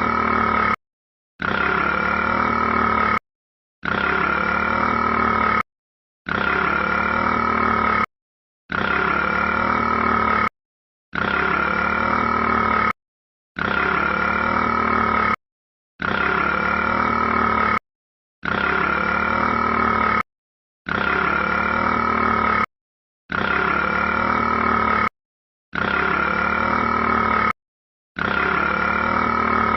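A burp-like sound, the one short clip played over and over: each play lasts about two seconds and is followed by a brief silence, about every two and a half seconds, roughly twelve times.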